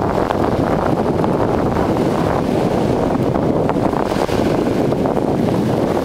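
Wind buffeting the camera's microphone in a loud, steady rumble, over small waves washing onto the beach.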